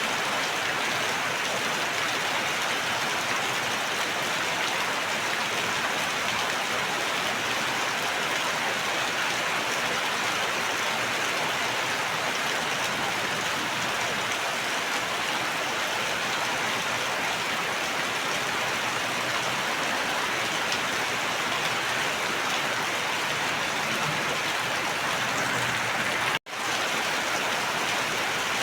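Steady, even rain falling in a continuous hiss, with a split-second gap where the sound drops out near the end.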